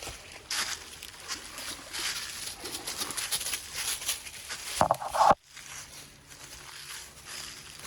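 Rustling and crunching, like movement through dry undergrowth, then a short loud cry just before five seconds in. The sound cuts off suddenly after the cry, leaving a faint steady hum.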